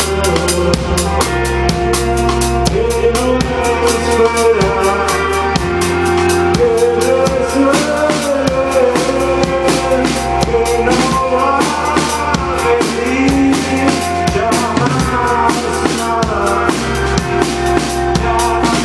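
Live rock band playing: a drum kit keeps a fast, steady beat under bass and electric guitar, with a melody line gliding over it from a few seconds in.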